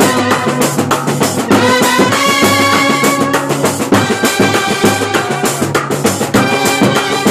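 Kerala bandset playing: trumpets and other brass hold a melody over fast, dense drumming on strapped side drums, tom-toms and a cymbal.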